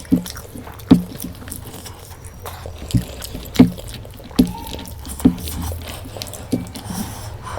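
Close-miked wet eating sounds: chewing and smacking of a mouthful of mutton curry and rice, with a short sharp wet click about every half second to second.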